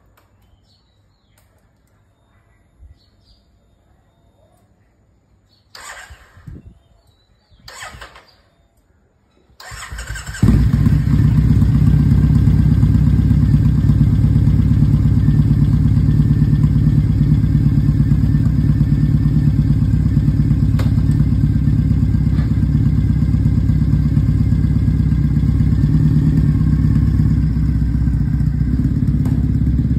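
Triumph Thruxton 900's 865 cc parallel-twin through a D&D full-system exhaust: two short bursts about six and eight seconds in, then the engine starts about ten seconds in and runs at a steady, loud idle with a deep exhaust note.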